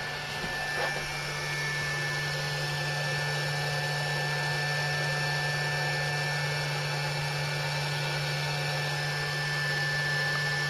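Steady electrical hum with a thin high whine and fan-like noise from a power inverter running under a heavy current draw.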